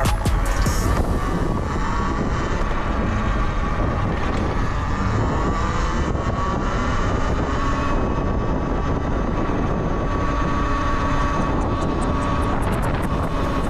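Wind buffeting the camera microphone while riding a Talaria Sting electric motorbike, with the electric drive's thin whine coming in about a second and a half in, rising slightly in pitch and then holding steady.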